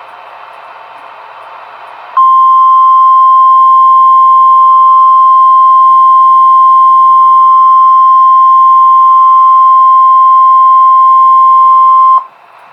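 Steady radio hiss, then about two seconds in a single loud, steady alert tone starts, holds for about ten seconds and cuts off abruptly, leaving the hiss. This is the 1050 Hz warning alarm tone of NOAA Weather Radio, sent ahead of a severe thunderstorm warning.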